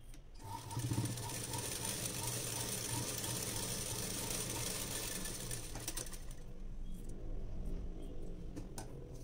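Sewing machine stitching a seam through blouse fabric. It starts about half a second in and runs steadily with a light ticking, then thins out after about six seconds, with a few sharp clicks near the end.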